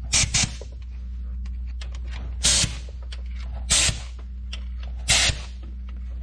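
Short blasts of compressed air from a blow gun, fired into the head bolt holes of a Jeep 4.0 inline-six block through a rag cupped over each hole to clear out any trapped fluid. Two quick blasts at the start, then three more about a second and a half apart.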